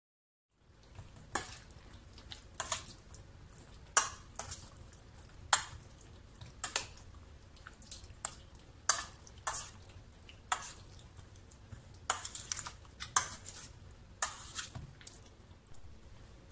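Metal spoon clinking and scraping against a stainless steel mixing bowl while stirring wet, oil-coated chicken pieces, with sharp irregular clinks about once a second.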